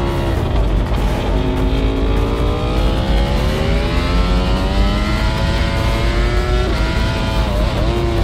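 Two-seater MotoGP motorcycle's engine pulling hard on track, its pitch dipping briefly near the start, climbing steadily for several seconds, then dropping again near the end. Heavy wind rush on the bike-mounted microphone lies under it.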